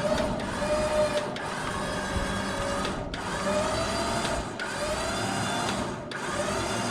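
Electric trailer winch motor whirring as it hauls the car onto the trailer, running in stretches of about a second and a half with brief drop-outs between them.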